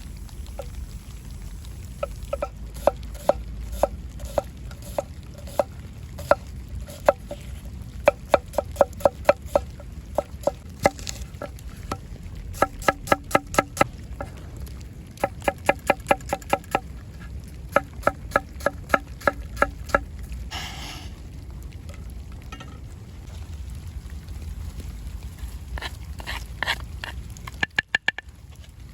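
Repeated bursts of sharp, ringing taps, about five a second, from a kitchen utensil striking a hard surface as food is prepared, over a steady low rumble. A short scraping noise comes about twenty-one seconds in.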